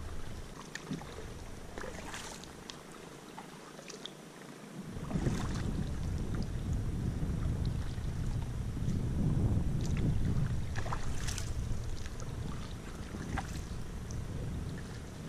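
Wind buffeting the microphone, a low rumble that eases off briefly and comes back strongly about five seconds in, over scattered small splashes and knocks of a canoe moving through the water.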